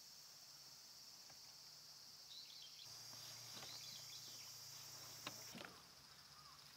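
Faint, steady high drone of insects in a summer forest, with a few small bird chirps in the middle and two short knocks about five seconds in as bags are moved in the car's open cargo area.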